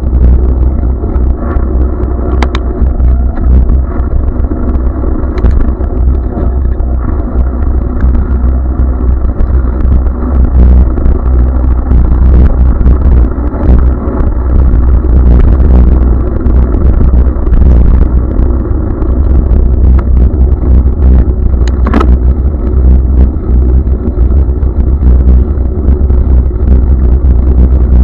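Steady, loud rumble of wind and road noise on a camera carried on a moving bicycle, with motor vehicles running in the surrounding traffic. A few sharp clicks or knocks cut through it, the clearest about three-quarters of the way in.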